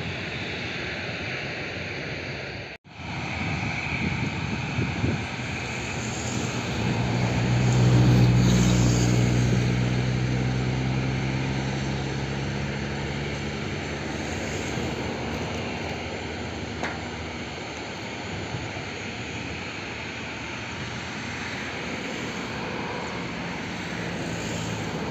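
Jet airliner engines, a Boeing 737's, running at low power on the runway: a steady engine noise with a low hum that swells about eight seconds in and then settles. The sound drops out for an instant near three seconds in.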